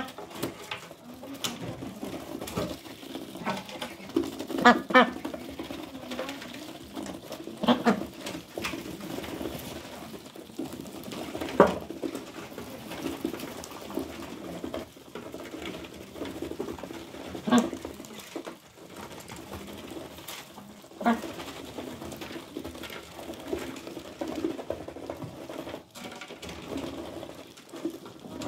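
Several white domestic ducks feeding together from a pan, a steady clatter of bills dabbling in the feed, with a few short quacks now and then.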